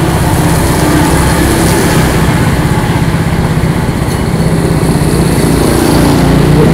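Small motor scooter engine idling steadily close by, a low even hum.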